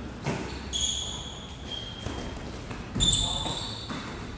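A basketball thumps on a hardwood gym floor and sneakers squeak as players cut and stop. The loudest thump comes about three seconds in, with a burst of squeaks right after.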